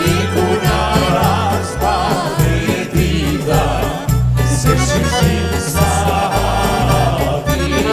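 Albanian folk-pop song: ornamented singing over a steady, heavy bass beat.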